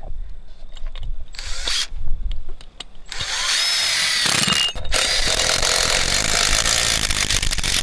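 Cordless drill driving a roofing screw through a round metal stress plate and the metal drip edge into the roof deck. A brief whir comes about a second and a half in. The motor then runs steadily from about three seconds in, with a short break near five seconds.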